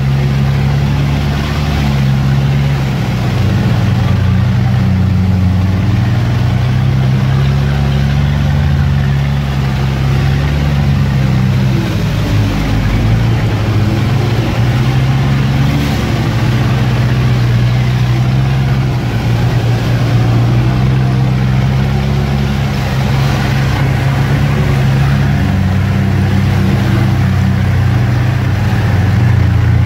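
Off-road vehicle's engine running at low revs while driving slowly over a rough dirt track, heard from inside the cabin: a steady low drone with small changes in pitch over a background of rumbling noise.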